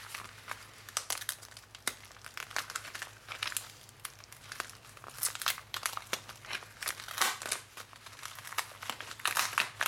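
Plastic bubble mailer crinkling and crackling in irregular bursts as hands pull and tear open its sticky sealed flap.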